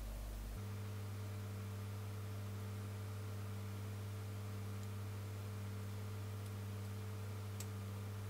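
Steady low electrical mains hum with a faint higher buzz above it; its tone shifts slightly about half a second in, then holds.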